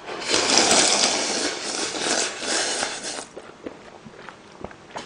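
Loud slurping of ramyeon broth and noodles drunk straight from a glass bowl, lasting about three seconds, then stopping, leaving only faint small clicks of chewing.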